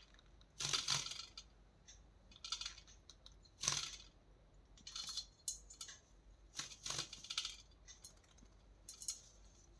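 Pet parrot splashing water in its bathing tub, in short bursts every second or two, with the biggest splash about a second in.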